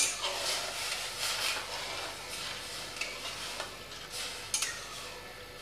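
Metal spatula stirring red lentils in boiling water in a metal kadai, the water bubbling, with a sharp clack of the spatula on the pan at the start and a few lighter taps near the end.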